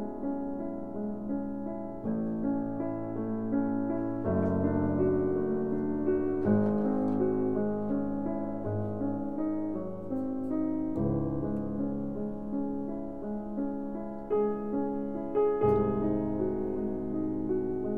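Background piano music, its chords changing about every two seconds.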